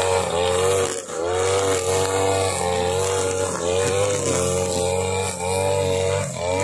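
Husqvarna 542RBS backpack brush cutter's two-stroke engine running at high speed while its nylon line cuts grass. The engine note dips briefly and recovers every second or so.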